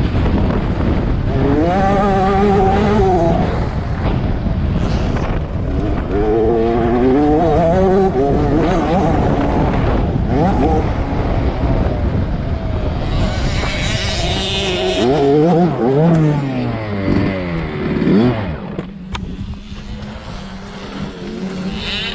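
A 65cc two-stroke motocross bike engine revving hard through the gears, its pitch climbing and dropping again and again, over a steady low wind rumble. The throttle shuts briefly a few seconds before the end, then the engine revs up again.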